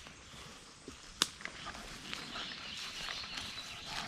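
Outdoor field sound of a person walking slowly on a woodland trail, with a sharp click about a second in and faint bird chirps in the background.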